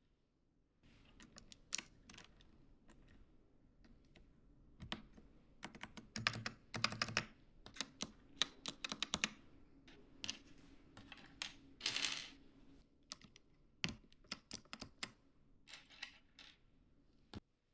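Typing on a computer keyboard: irregular runs of key clicks with short pauses, and a brief rustling noise about twelve seconds in.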